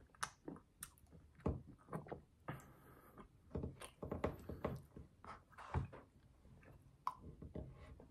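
Eating ice cream from a paper McFlurry cup: the spoon knocks and scrapes in the cup, with chewing and mouth sounds between. Irregular sharp clicks and a few louder thunks.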